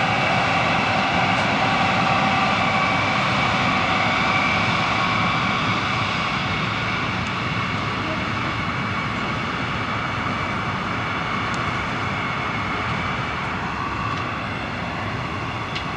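Three GE E60C-2 electric locomotives passing on a coal train, a steady whine of several tones over the rumble of wheels on rail. It eases slightly about halfway through as the hopper cars follow.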